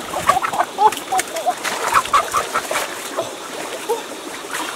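Chickens clucking in many short calls, with water splashing.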